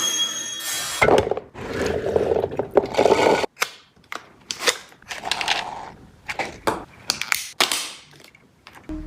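A plastic toy gun being handled and worked: a run of irregular clicks and knocks, with stretches of scraping and rattling.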